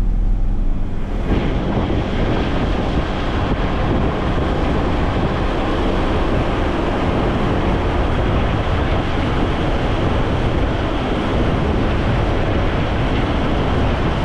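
Steady wind rush buffeting the microphone, over road and engine noise from a vehicle driving along, starting abruptly about a second in as the microphone is held out of the open side window.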